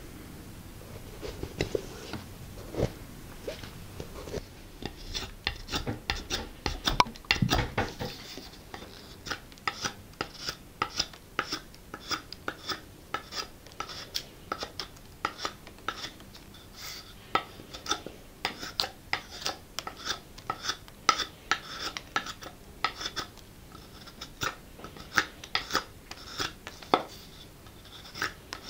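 Knife blade shaving wood from a barked branch in brisk, repeated slicing strokes, roughly two a second, each a short dry scrape. In the first few seconds there are only a few soft taps and rustles of hand-sewing.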